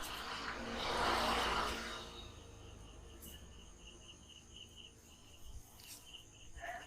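Insect chirping, a steady high pulsing tone about five pulses a second, after a louder swell of noise in the first two seconds.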